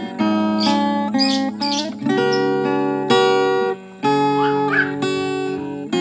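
Background music on acoustic guitar: plucked and strummed chords with notes held and changing every second or so.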